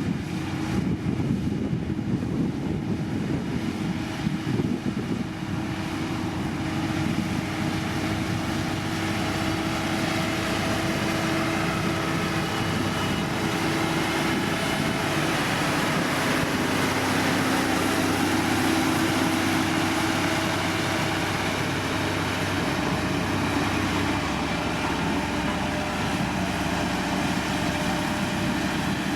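Heavy road-construction machine's diesel engine running steadily, its pitch dropping a little about halfway through.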